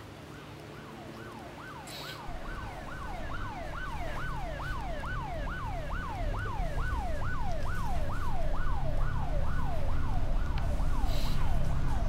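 Emergency-vehicle siren in a fast yelp, about three falling whoops a second, fading in and growing steadily louder as it approaches, over a deep low rumble that swells up about two seconds in.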